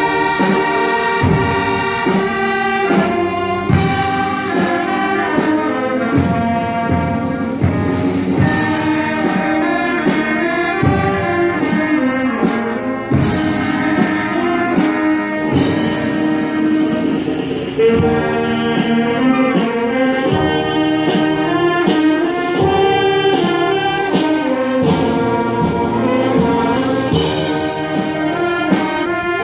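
Wind band playing a lively piece, brass to the fore, with sharp percussion hits on the beats.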